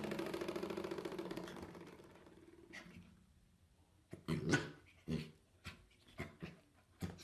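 Corgi puppy making a low, pulsing growl that fades away over the first few seconds, then a run of short yips about twice a second.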